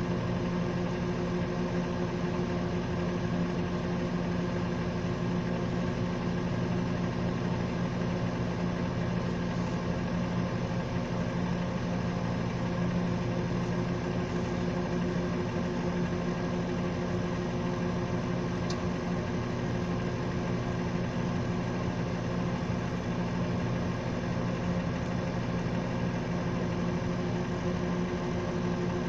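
Microwave oven running, a steady even hum.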